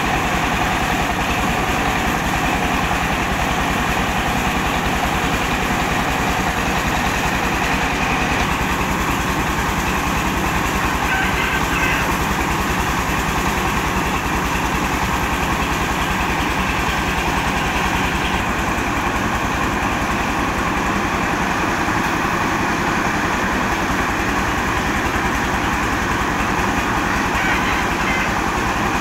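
Truck-mounted rice mill running steadily: its diesel engine driving the huller and polisher, with a fast low engine beat under a continuous whirring hiss from the milling machinery.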